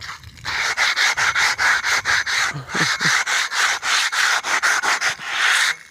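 Hand sanding with sandpaper, rapid back-and-forth strokes at about four a second, rubbing old paint off a surface.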